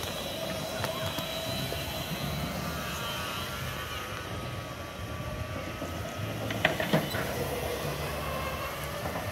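Go-karts running around the track, a steady hum of kart motors with whining tones that rise and fall as karts pass. Two sharp clacks about seven seconds in.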